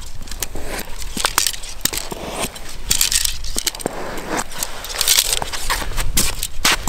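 Arrows being pulled out of a foam block archery target and clattering together in hand: a string of sharp clicks and ticks with a few short scraping rustles.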